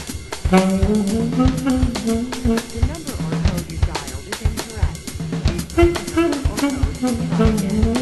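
Music: a steady drum-kit beat with a saxophone melody over it.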